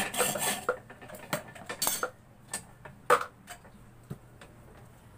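Steel rod rasping against a wooden block in quick strokes that stop under a second in, then scattered sharp metallic clicks and clinks as the rod is handled, the loudest about three seconds in.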